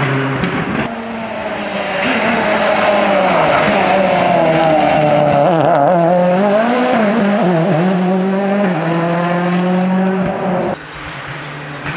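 A Ford Fiesta rally car's engine revving hard through a corner, its pitch climbing, dipping with lifts and gear changes, then climbing again. Near the end the sound cuts abruptly to a quieter engine.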